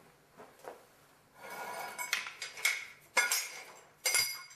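Concrete pier blocks scraping and knocking against each other as one is lifted out of a crawl space. There is a scrape, then four sharp clinks, one roughly every half second.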